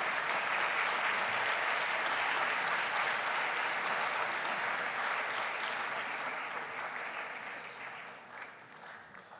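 A hall audience applauding, the clapping steady at first and dying away over the last two seconds or so.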